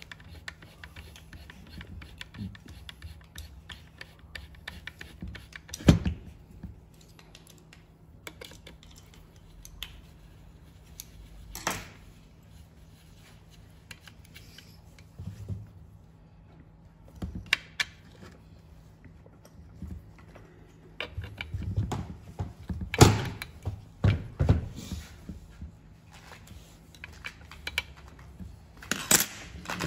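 Hand tools and parts of a brush cutter being handled during repair: scattered clicks and knocks. There are sharp knocks about six and twelve seconds in and a busier run of them in the last third, over a faint steady hum.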